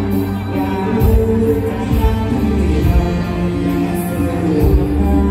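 Live mor lam band music over the stage loudspeakers: a sung melody over a steady bass drum beat.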